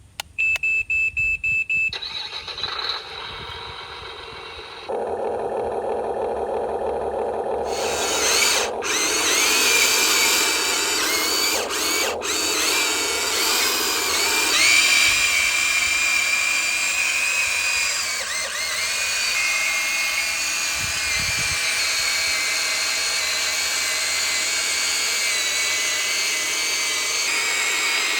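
Huina 1592 RC toy excavator starting up: a few short electronic beeps, then a rhythmic mid-pitched sound, then its small electric motors whirring with a high, wavering whine as it is worked.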